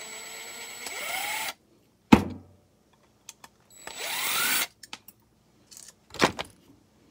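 Cordless drill-driver run in two short bursts to back out screws, its motor whine rising in pitch as it spins up each time. A sharp knock, the loudest sound, comes between the bursts, and another knock comes near the end.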